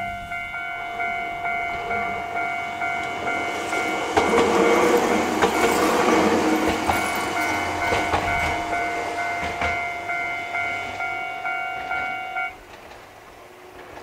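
Japanese level-crossing warning bell dinging rapidly and steadily as a short electric train runs over the crossing, its wheels clacking over the rail joints. The bell stops shortly before the end.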